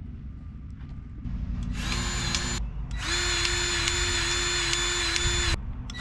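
A cordless power tool's motor runs steadily in two bursts: a short one just under a second long, then a longer one of about two and a half seconds.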